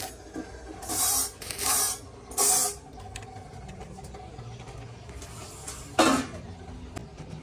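Stick welder tack-welding square steel tubing: three short bursts of crackling arc hiss in the first three seconds. A single sharp knock about six seconds in.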